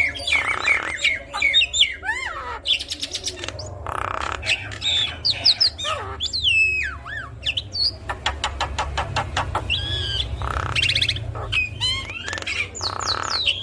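Javan myna (jalak kebo) singing a busy, varied song: whistles that glide up and down, fast runs of clicks, and harsh squawking bursts, one after another without pause. A faint steady low hum lies underneath.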